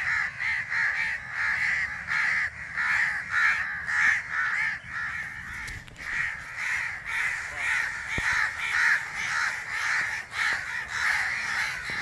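House crows cawing nonstop: a rapid run of harsh, overlapping caws, several a second, from a fledgling and its parents, the adults making a racket over their grounded young.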